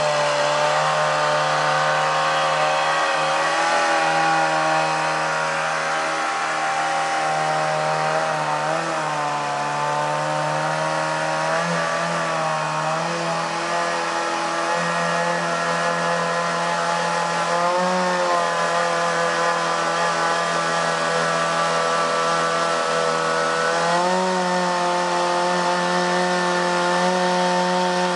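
Two-stroke chainsaw engine running steadily while driving a boat-motor attachment, its speed dipping and rising slightly a few times.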